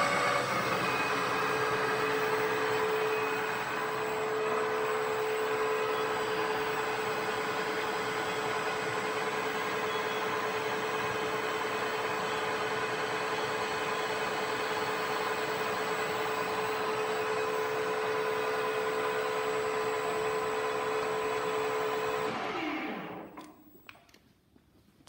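Metal-working lathe spindle and drive running steadily with a constant whine. About 22 seconds in it is switched off: the whine falls in pitch as the spindle spins down to a stop, leaving a few faint clicks.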